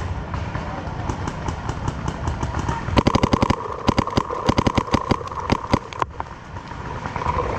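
Paintball markers firing rapid strings of shots: fainter shots from other players run throughout, and close, loud strings start about three seconds in and cut off suddenly about six seconds in.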